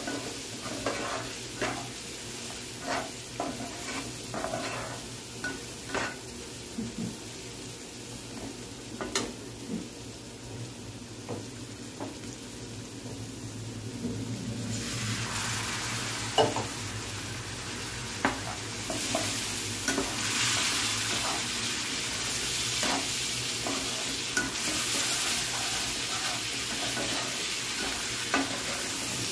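A metal spatula scrapes and knocks against a black kadai as chicken masala is stirred, over a steady sizzle of frying oil. About halfway through, liquid is poured in from a bowl, and the sizzling jumps to a much stronger hiss with uneven swells.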